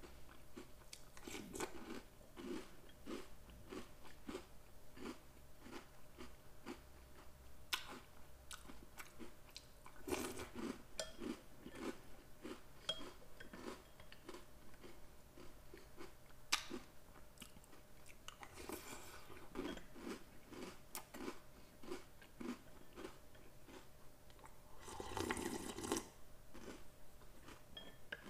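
Chewing and crunching of Oreo O's cereal in milk: a steady run of crunches, about two to three a second, with a louder, longer burst of noise about 25 seconds in.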